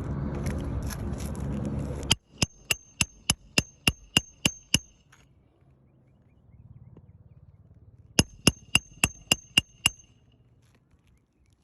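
A hammer driving roofing nails through asphalt shingles: two runs of quick, evenly spaced strikes, about four a second, each hit ringing metallically, with a pause between the runs. Before the first run, about two seconds of rough scraping.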